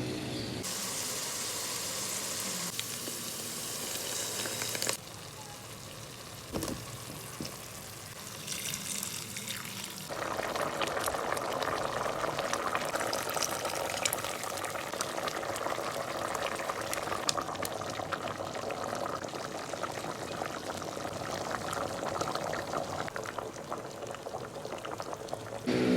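Curry cooking in a pot: hot oil sizzling, liquid pouring, and a bubbling, crackling simmer. The sound changes abruptly at about 5 and 10 seconds in.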